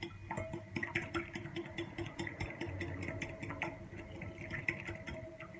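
Wire whisk beating an egg in a glass bowl: rapid, irregular clicking and tapping of the wires against the glass, over a steady low hum.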